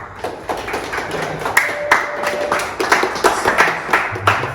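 A group of people clapping together in a steady rhythm, about three to four claps a second, cheering on a runner in a beep test.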